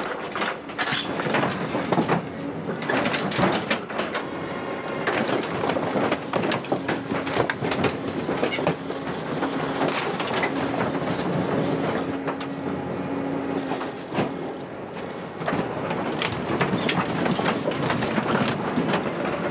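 Corrugated sheet steel crumpling, creaking and cracking as a Cat excavator's bucket presses down on it and its tracks roll over it, with the excavator's engine running.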